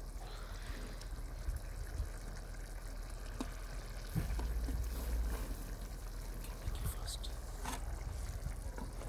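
Fish curry gravy simmering in a wide metal karahi, a steady bubbling hiss with a few scattered sharp clicks.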